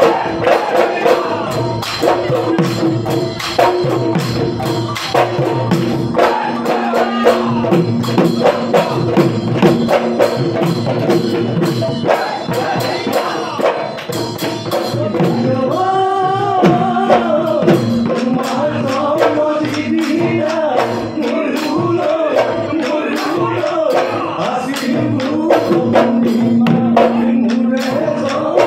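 Live Bihu folk music: dhol drums beaten in a fast, steady rhythm, with a woman singing over them.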